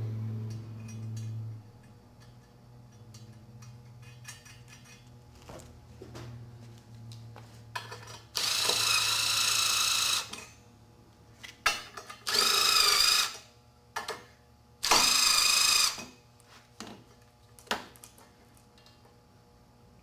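Battery-powered nut driver running nuts down onto threaded weld studs: three short runs of one to two seconds each, the motor whine wavering in pitch, with light clicks and rattles of the tool and parts between the runs.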